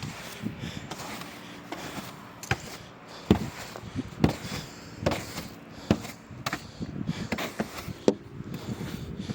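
Ice scraper knocking and scraping crusted ice and snow off a car, a string of sharp irregular strokes about every second or less.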